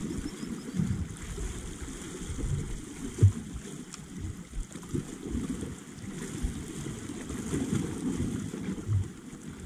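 Wind buffeting the microphone, with sea water lapping gently against shore rocks and a few soft low bumps.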